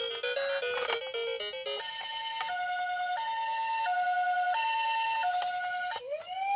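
Electronic jingle melody for the first couple of seconds, then a two-tone ambulance siren alternating high and low notes about every 0.7 s. Near the end a rising wail siren starts and holds.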